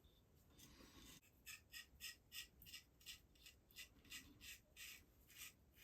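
Faint, quick strokes of a double-edge razor with Blue Star blades scraping stubble through lather. About three short scrapes a second start about a second in and run until near the end.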